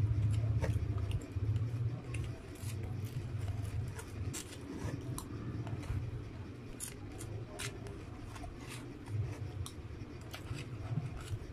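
Close-up eating sounds: irregular sharp clicks of chewing and lip smacks, and a plastic spoon scraping and tapping rice in a cardboard food box, over a low hum.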